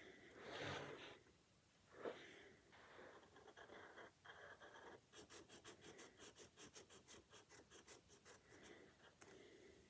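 Pencil scratching faintly on paper as a drawing is made: a few separate strokes, then a quick run of short back-and-forth strokes, about four a second, in the second half.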